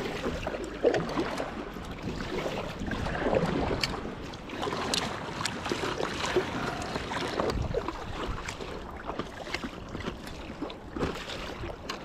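Sea water sloshing and splashing around a stand-up paddleboard, with scattered small knocks and clicks.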